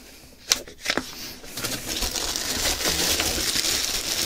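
Clear plastic wrapping crinkling and rustling as a wrapped bundle is gripped and pulled out of a cardboard box. Two short sharp rustles come about half a second and a second in, then the crinkling grows louder and runs on steadily.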